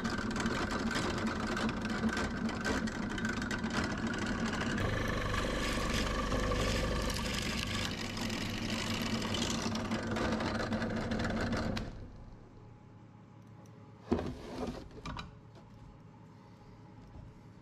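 Drill press boring into a jatoba mallet head with a large spiral bit: the motor runs steadily under load while the bit cuts, and the noise drops off sharply about twelve seconds in. A few short knocks follow a couple of seconds later.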